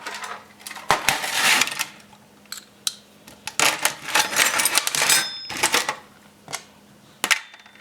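Handling and clattering close to the microphone: a run of sharp clicks and rustles with light metallic clinks, one of which rings briefly about five seconds in.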